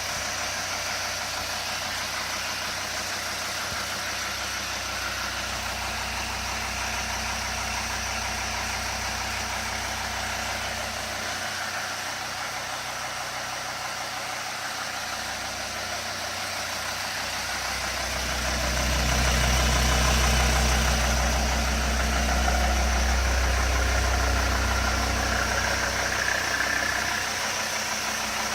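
Mercedes-Benz ML 270 CDI diesel engine idling with an unexplained knock. The engine gets louder and deeper for several seconds past the middle, then settles back.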